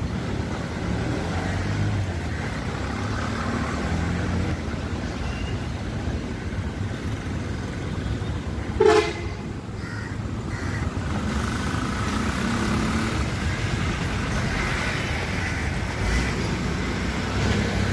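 Steady outdoor background of road traffic, with one short, sharp sound about nine seconds in that falls quickly in pitch.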